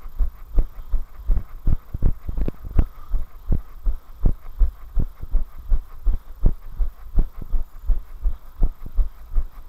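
A runner's footfalls on a tarmac path, a steady run of low thuds at about three a second.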